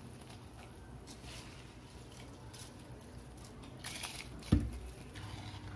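Handfuls of soaked basmati rice dropped into a pot of water at a rolling boil, making a few brief wet splashes over the steady bubbling. A single low thump about four and a half seconds in.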